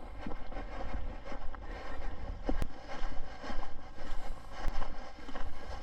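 Wind buffeting the microphone: a low, gusting rumble that rises and falls, with a few sharp clicks or knocks.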